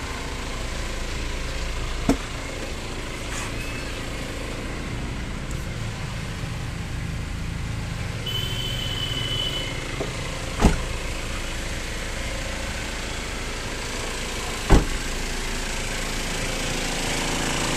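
Mahindra Scorpio's engine running steadily, now that it starts again after its wiring was rebuilt. Three short sharp thumps come about 2, 11 and 15 seconds in.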